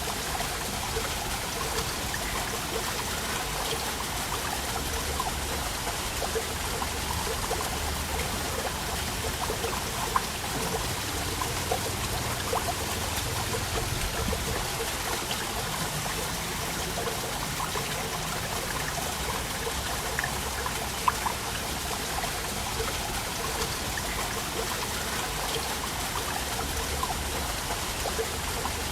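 Waterfall: steady rush of falling water with small splashes scattered through it.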